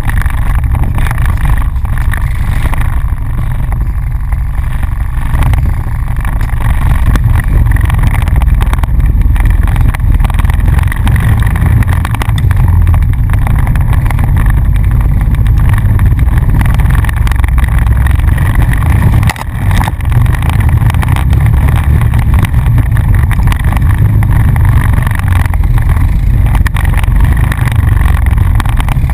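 ATV engine running steadily under load while riding a trail, heard up close with a strong low-pitched drone; the sound briefly drops off about two-thirds of the way in before picking back up.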